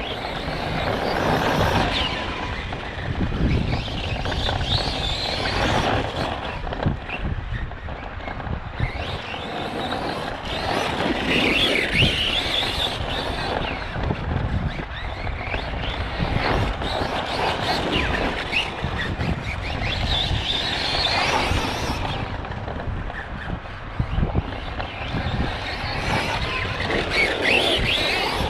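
Arrma Kraton 4S RC truck's brushless motor and drivetrain whining, rising and falling in pitch as it speeds up and slows through the laps, with a noise the owner takes for an unhappy bearing or gear.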